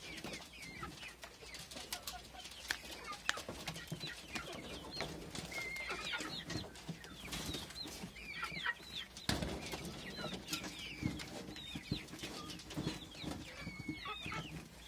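Nutria crunching and gnawing apples, a run of short crisp crunches and clicks, with high chirping calls through most of it.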